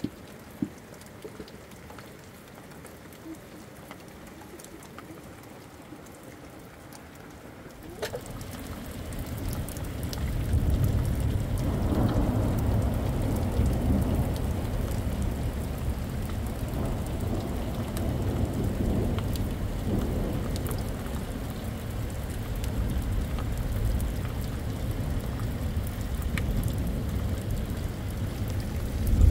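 Rain falling steadily. About eight seconds in it becomes louder, with a deep rumble underneath.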